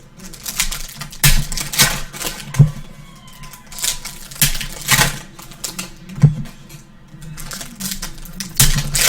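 Trading card packs being handled: foil wrappers crinkling and cards rustling and sliding against each other in irregular clicks and rustles.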